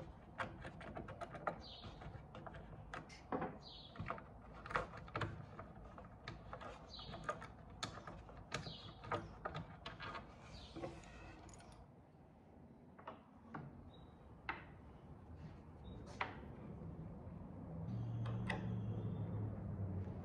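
Hand screwdriver taking off drawer knobs and pulls: a run of small clicks and metallic taps with short squeaks as the screws turn, thinning out after about twelve seconds. A low hum comes up near the end.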